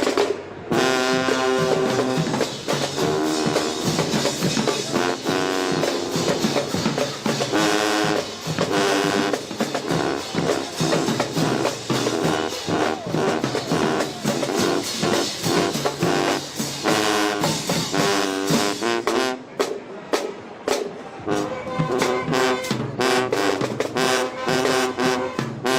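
Marching band playing: brass horns such as trombones and trumpets sound chords over a steady drum-line beat.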